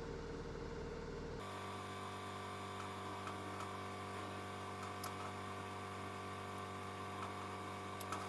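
Steady electrical mains hum from a device taken out of a microwave oven and running on mains power; the hum changes to a different set of tones about a second and a half in, with a couple of faint clicks later on.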